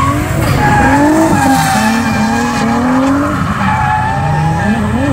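Drift car sliding sideways with tyres squealing as it throws smoke. The engine revs rise and fall as the driver works the throttle through the slide.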